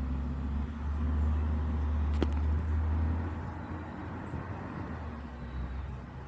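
Low rumble of a car, louder for about three seconds and then fading away, with a single sharp click about two seconds in.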